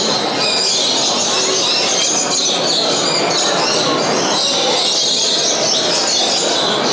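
Dense, steady chorus of many caged show birds chirping and singing at once, with faint crowd chatter underneath.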